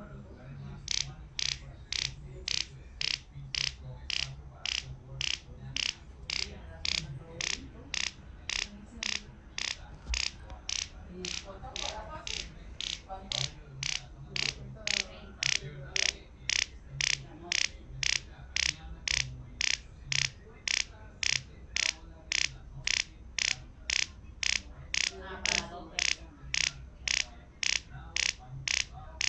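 Smartphone speaker sending out short high-pitched sonar pulses from the phyphox app, about two a second. The pulses bounce off a metal pot lid and the phone's microphone picks up the echoes to measure the distance.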